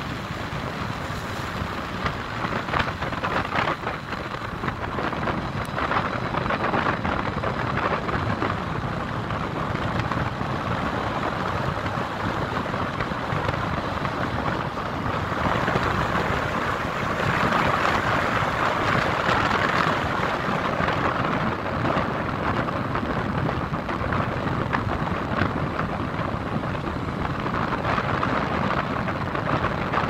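Steady wash of city traffic noise, a hiss-like rumble that swells a little about halfway through and then eases.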